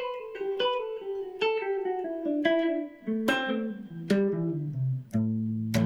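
Guitar playing the Dorian scale as a run of single plucked notes that step steadily down in pitch. The run ends on a held low note a little after five seconds in.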